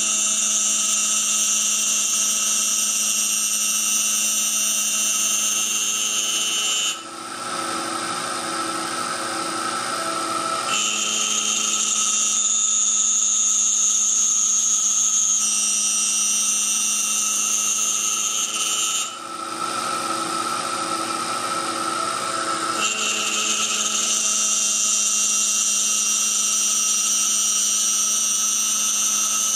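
A small CNC mill's spindle running with a steady high whine as it cuts a wooden ring insert. Twice the high part of the whine drops away for a few seconds and then returns.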